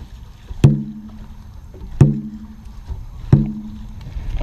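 Dragon boat drum struck three times at an even pace, about one beat every second and a third, each hit ringing briefly, setting the paddlers' stroke.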